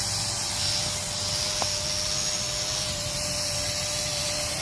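Wind buffeting the microphone, with the steady, even-pitched hum of a quadcopter drone's propellers.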